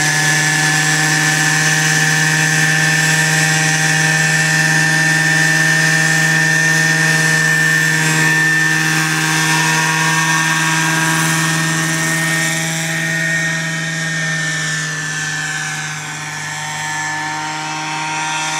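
Petrol-engined radio-controlled scale Dauphin helicopter with a four-blade rotor and Fenestron tail in flight: a steady engine and rotor hum with a high whine over it. It grows quieter after about twelve seconds as the model climbs away.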